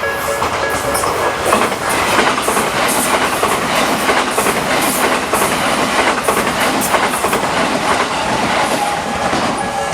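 Electric commuter train passing over a level crossing, its wheels clacking steadily over the rail joints. The slow electronic crossing bell is drowned out by the train and comes back faintly near the end.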